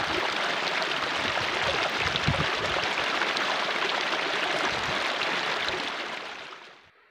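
Shallow stream of water rushing and splashing over rocks and stones, a steady noise that fades out near the end.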